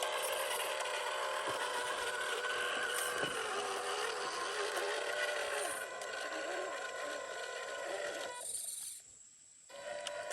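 Electric motor and gearbox of a 1/12-scale MN128 RC Jeep whining, its pitch wavering with throttle and load. It cuts out for about a second near the end, then starts again.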